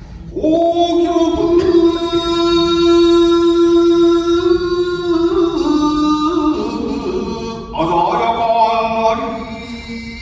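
Shigin, Japanese classical poem chanting, by a single voice: one long note held steadily for about five seconds, then a shift in pitch and a new phrase with wavering ornaments.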